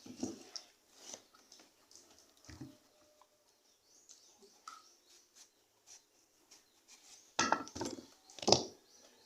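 Mealtime sounds: scattered light taps and clinks of utensils against dishes, with two louder bursts near the end.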